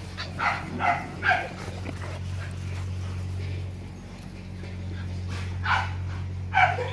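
Four-month-old Rottweiler puppies yipping in play: three quick yips in the first second and a half, then two more near the end.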